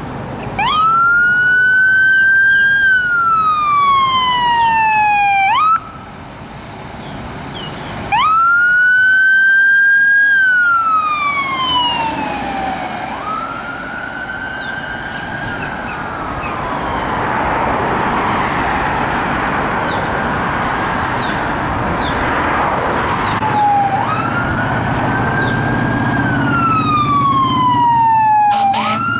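Fire apparatus sirens wailing on an emergency response. Each wail climbs quickly, holds briefly, then falls slowly, repeating every several seconds. In the middle the heavy rumble of the trucks' engines and tyres swells as they drive past.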